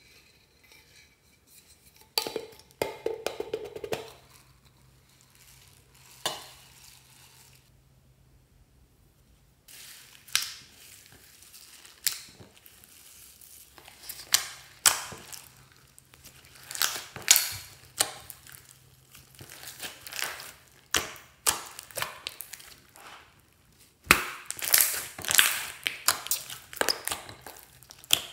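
Glossy slime with foam beads mixed in, squished and stretched by hand in a glass dish: irregular wet squishes, pops and crackles, sparse at first and coming thick and fast from about ten seconds in.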